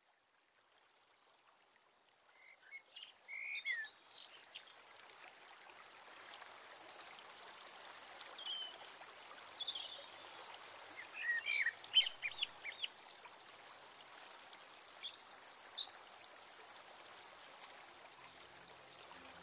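A steady rush of flowing water fades in over the first few seconds, with short bird chirps scattered through it: a nature-sound ambience.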